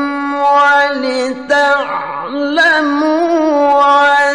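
A male Qur'an reciter (qari) chanting in melodic tilawah style, unaccompanied. He holds long, high, ornamented notes, with a brief swoop down in pitch and back up about two seconds in.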